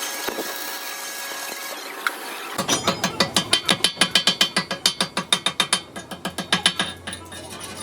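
Rapid, regular mechanical clicking, about six sharp clicks a second, starting between two and three seconds in and stopping near the end, over a steady background hiss.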